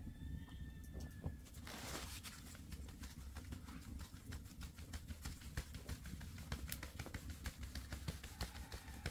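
A round wooden-rimmed flour sieve shaken by hand: a brief rushing hiss about two seconds in, then quick, irregular taps and rattles of the frame, several a second.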